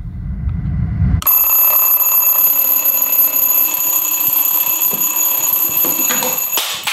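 Retro alarm clock ringing loudly and steadily for about five seconds, a shrill, stressful ring that stops shortly before the end. It cuts in sharply over a low rumble that ends about a second in.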